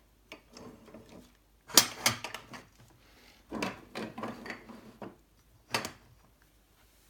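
3D printer kit parts being shifted and pushed into place by hand on a table: black aluminium extrusion rails and small parts knock and clatter irregularly, loudest about two seconds in, with another cluster around four seconds and a single knock near six seconds.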